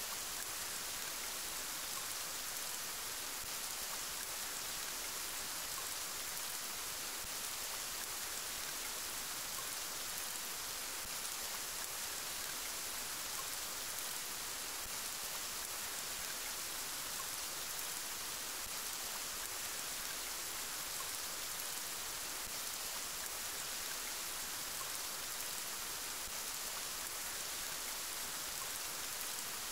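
Steady rain, an even, unchanging hiss with no thunder or other events standing out.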